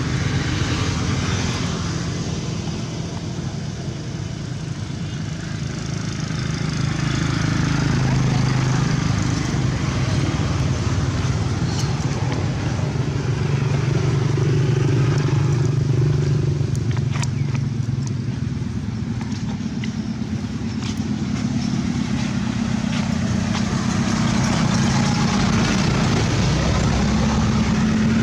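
Motor vehicle engines running on a road, growing louder and quieter over several seconds with the pitch of the engine hum shifting, plus a few faint clicks.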